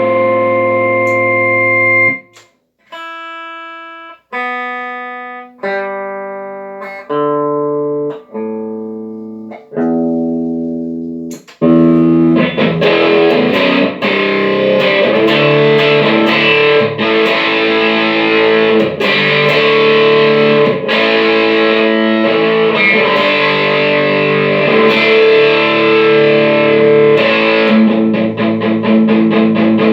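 Electric guitar played through a Line 6 HD500X multi-effects processor, whose output now passes signal again after repair. A held chord is cut off about two seconds in, followed by single chords struck about once a second and left to ring out. From about twelve seconds in comes dense, continuous playing.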